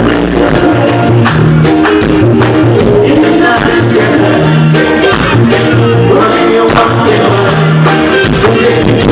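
Live reggae band playing loud, a repeating bass line and steady drum beat under keyboard, with a voice singing over it.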